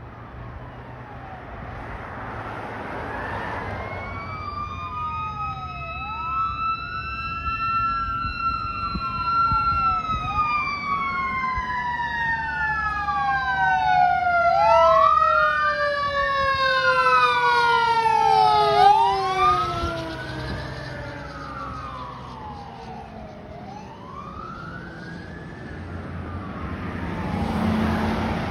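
Fire engine responding with its siren on: an electronic wail sweeping up and down about every two seconds, with a second siren tone that climbs for the first several seconds and then slowly falls away. The siren grows louder as the truck approaches, is loudest around the middle, and fades after that.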